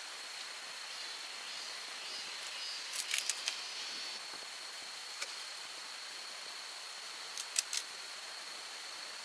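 A steady thin high-pitched tone over a hiss, with a few sharp clicks in two quick clusters, about three seconds in and again near the end.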